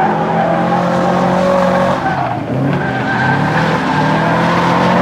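Drift car engine held at high revs while its tyres squeal and skid. The revs dip briefly about two seconds in, then pick up again.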